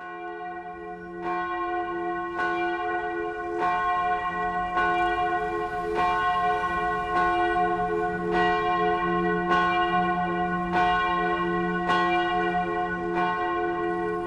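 A church bell tolling at a steady pace, struck about once every 1.2 seconds, each strike ringing on into the next. It fades in over the first second.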